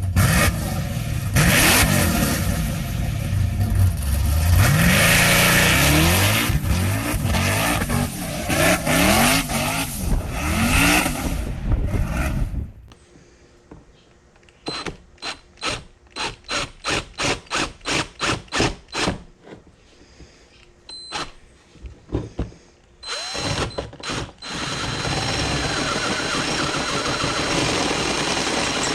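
An engine revving up and down over and over for about twelve seconds, then cutting off. It is followed by a run of evenly spaced clicks or knocks, about three a second, and near the end by a steady mechanical noise with a thin high whine.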